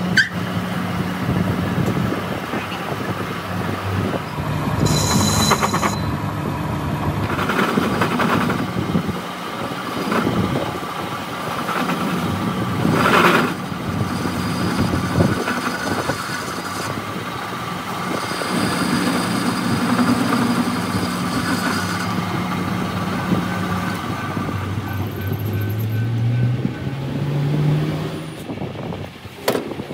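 Metal lathe running with a steady hum while a cutting tool turns down the end of a steel axle shaft. A tone rises in pitch near the end.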